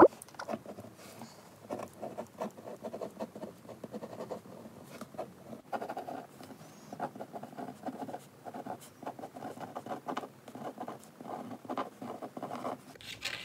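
A pen writing on a handmade greeting card: quick, irregular scratching and tapping strokes.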